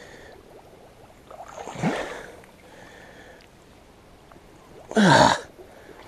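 A man's effortful grunts as he strains through deep, sucking mud: a short one about two seconds in and a louder one near the end, both falling in pitch, over the faint steady rush of creek water.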